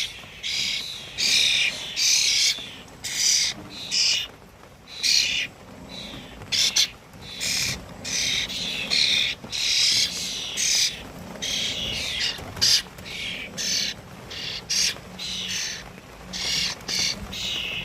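Small songbirds chirping and calling: many short, high-pitched calls repeating in quick succession.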